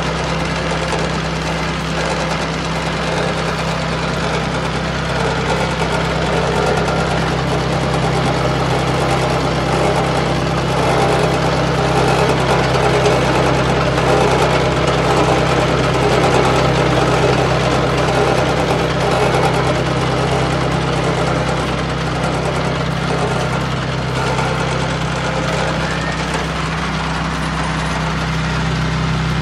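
Engine of an Ecobeach self-propelled beach cleaner running steadily as the machine works through sand: a constant low engine hum under a rougher, noisier layer, a little louder around the middle.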